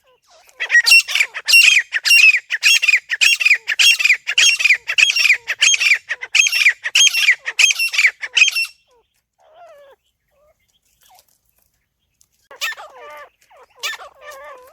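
Teetar (francolin) calling: a fast series of loud repeated notes, about two or three a second, for some eight seconds, then a pause of about three seconds before the calling starts again near the end.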